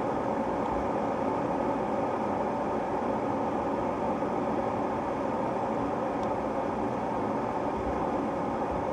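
Ovente KG83B glass electric kettle heating water just short of the boil: a steady rushing noise as the water starts bubbling on the hot base.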